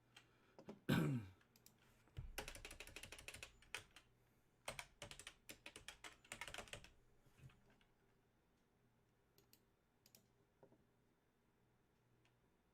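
Computer keyboard typing in two quick runs of rapid key clicks, after a brief falling-pitch sound about a second in; only a few scattered clicks follow.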